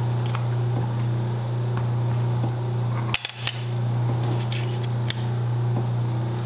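A steady low hum, like a motor running, with scattered sharp clicks and a short cluster of clicks about three seconds in.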